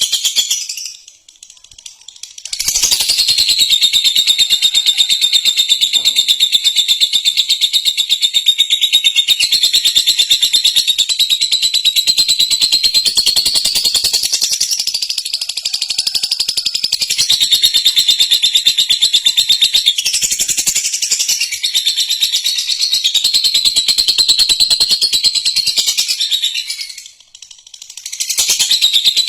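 Lovebird ngekek: a long, unbroken chatter of very rapid, shrill chirps, held for over twenty seconds at a time. It breaks off briefly about a second in and again near the end, then resumes.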